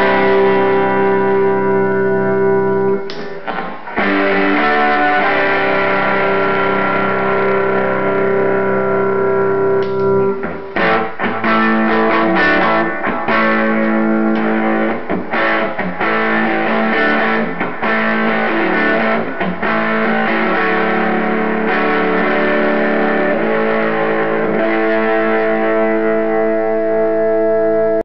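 Telecaster-style electric guitar played with overdrive through a Silvertone 1482 tube amp, strummed chords left to ring, with short breaks near the start and about ten seconds in. The Tone Factor Hellbilly overdrive pedal is switched on partway through.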